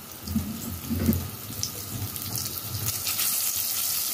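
Butter melting and sizzling in a hot pot, a steady hiss that grows louder from about three seconds in. A few low bumps come in the first second.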